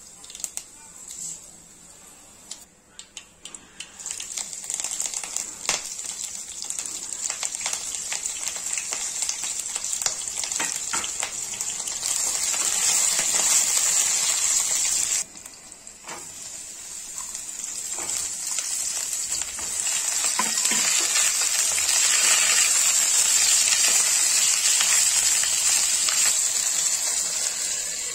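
Hot oil sizzling as a spice tempering is fried in a kadai. Mustard seeds crackle and pop as they go in, then green chillies and curry leaves hiss loudly as they are stirred with a wooden spatula. The sizzle cuts out suddenly about fifteen seconds in and builds again.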